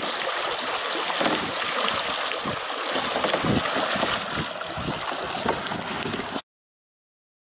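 Canoe paddle churning river water alongside the canoe, a continuous splashing with many short splats of the blade hitting the water. It cuts off suddenly about six seconds in.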